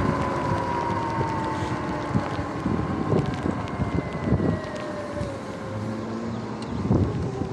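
Electric bike riding on wet pavement: the motor's whine slowly falls in pitch as the bike slows, over wind on the microphone and the tyres on the wet surface, with a few light knocks from bumps.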